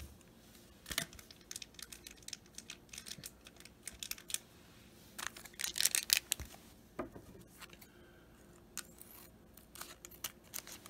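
Baseball cards and a plastic card-pack wrapper being handled: a quick run of small crinkles and clicks, densest about five to six and a half seconds in, then sparse.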